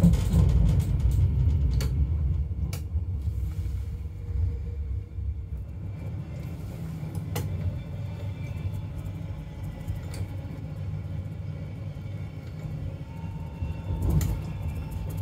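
Suburban electric train running along the line, heard from the cab: a steady low rumble with a few sharp clicks spread through it. A faint steady tone comes in near the end.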